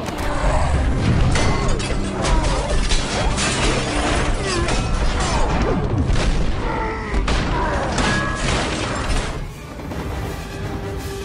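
Film score music under superhero-movie action sound effects: repeated booms, crashes and impacts, with the mix easing off a little near the end.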